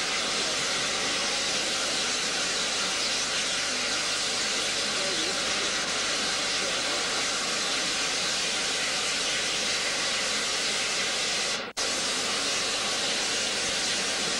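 Steam locomotives blowing off steam: a loud, steady hiss with no chuffing. The sound drops out for an instant about three-quarters of the way through.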